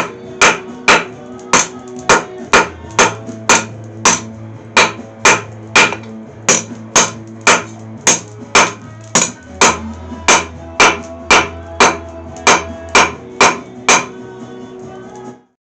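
Rounding hammer striking a hot mild-steel bar on an anvil at about two blows a second, forging the bar from an octagon to a round section, with background music underneath. The sound cuts off abruptly near the end.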